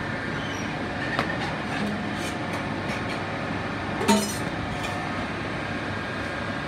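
Steady whir of commercial kitchen equipment with a few sharp clinks of metal utensils and stainless steel pans, a light one about a second in and a louder, ringing one about four seconds in.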